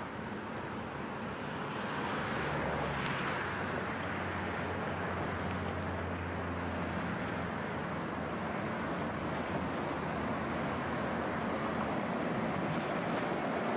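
Diesel commuter railcar set running through a rail yard: a steady engine drone with a low hum, growing louder about two seconds in as the train approaches.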